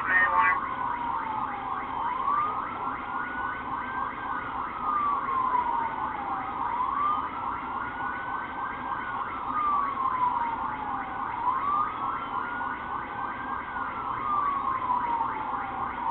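Police siren on the slow wail setting, rising over about two seconds and falling over about two and a half, repeating steadily.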